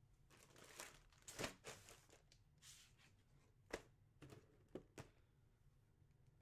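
Faint rustling and crinkling of packaging being handled, followed by several short, light clicks.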